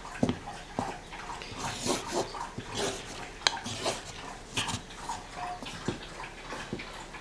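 A dog drinking, lapping water from its bowl in short, irregular strokes.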